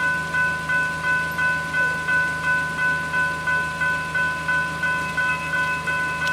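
General Signals Type 3 electronic level-crossing bells ringing, an even, repeated ding about three times a second, sounding while the crossing is activated for an approaching train.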